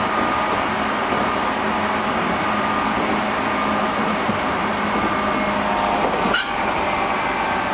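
JR Central 211-series electric train heard from inside motor car MoHa 210-5017, running at speed: a steady rumble of wheels and running gear with held whining tones from the internal-fan traction motors and gears. A single sharp click comes about six seconds in. The car is known as an abnormal-noise car for this loud motor sound.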